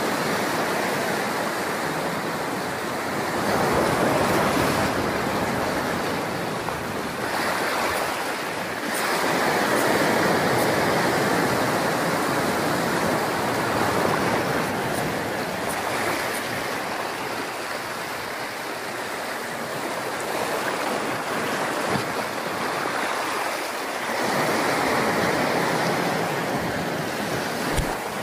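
Sea waves washing onto the beach, a steady rush that swells louder and eases off every several seconds.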